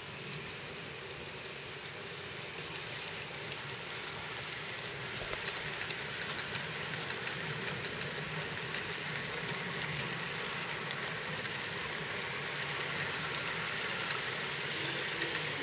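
HO scale model freight train rolling past close by: a steady rolling whir of wagon wheels on the track with scattered clicks, growing louder as the wagons come nearer.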